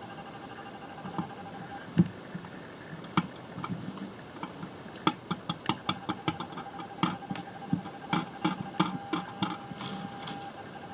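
Plastic Lego Technic pieces clicking and clattering as they are handled and fitted together: a few scattered clicks at first, then a quick irregular run of them through the second half. A faint steady whine sits underneath.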